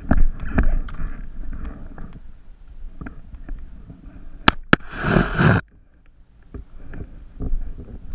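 A player's footsteps and gear rustling against a body-mounted camera as he moves with a riot shield, loudest in the first second. About four and a half seconds in come two sharp clicks a quarter-second apart, then a short rush of noise lasting about half a second.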